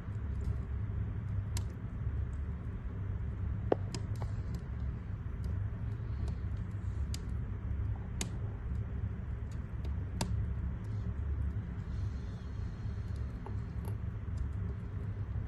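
Wood fire crackling in a fireplace: a steady low rumble with scattered sharp pops of burning logs, the loudest one a little under four seconds in.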